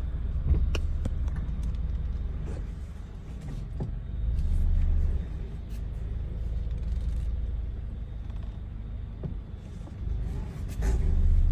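Subaru BRZ running at low speed with a steady low rumble, swelling twice, and a few scattered clicks from the front end: the weird noise that shows up when the steering is turned near full lock.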